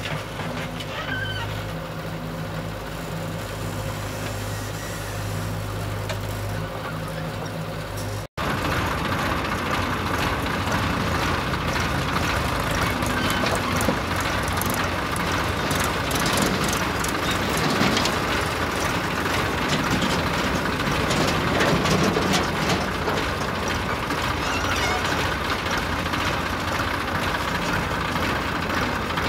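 Diesel engine of a JCB backhoe loader running under load as it digs and loads soil. About eight seconds in there is an abrupt cut to a second, louder and noisier recording of a backhoe at work.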